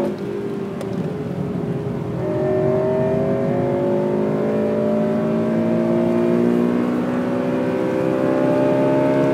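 Honda Civic Type R FN2's 2.0-litre four-cylinder i-VTEC engine heard onboard, pulling hard under acceleration. Its pitch climbs slowly and steadily through a long stretch of one gear.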